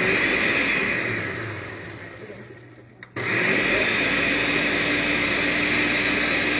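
Countertop blender blending a banana and almond-milk smoothie: the motor runs loudly, fades away as it winds down over a couple of seconds, then starts again suddenly about three seconds in and runs steadily.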